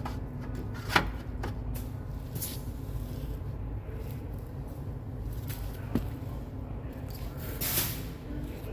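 Handling noises during wheel-hub work: two sharp clicks about a second in and about six seconds in, and a brief hiss near the end, over a steady low hum.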